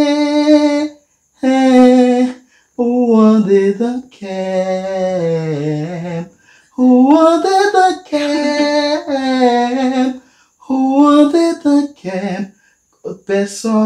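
Unaccompanied voice singing a slow melody with no clear words, held notes wavering in pitch, in short phrases broken by brief pauses.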